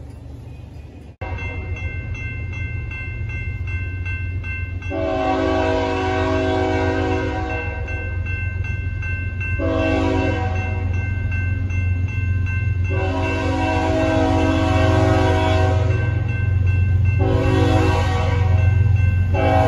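Approaching BNSF diesel freight locomotive sounding its multi-note air horn in a series of five blasts, two of them about three seconds long, over a low engine rumble that grows steadily louder as the train nears.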